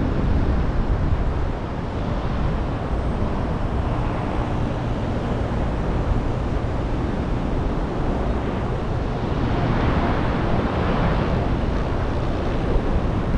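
Wind rushing over the microphone in flight under a paraglider: a steady, rumbling noise that swells louder for a second or two about ten seconds in.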